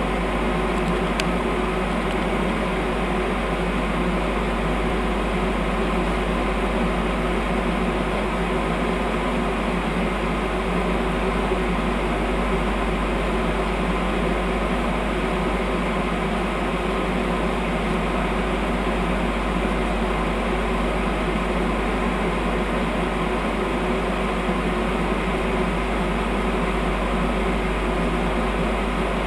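Steady hum and whir of a stationary PESA Acatus electric multiple unit's onboard equipment running while the train stands at a station, a constant noise with several fixed tones and no change in level.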